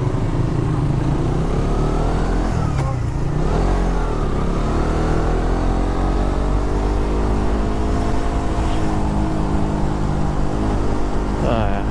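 Suzuki GSX150 Bandit's single-cylinder engine running on the road. Its pitch drops and climbs again about three seconds in, then rises slowly and eases off, over a steady low rumble of wind and road noise.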